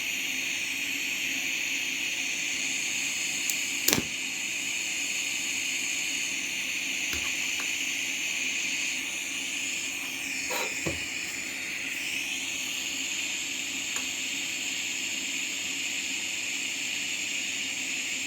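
TIG welding torch hissing steadily, with a sharp click about four seconds in and a brief change in tone near the middle.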